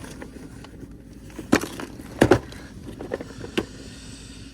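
A few sharp clicks and knocks of plastic tackle boxes and lures being handled, the loudest a double knock a little past the middle, over a steady low background noise.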